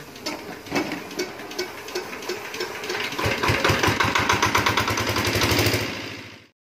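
Dongfeng 7.5 hp single-cylinder diesel engine being hand-cranked, turning over with uneven clicks, then catching about three seconds in and running with a rapid, even knock. The sound fades out shortly before the end.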